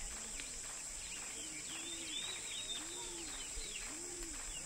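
Rural outdoor ambience: a steady high-pitched insect drone, small birds chirping, and a dove cooing in low arched notes repeated about once a second.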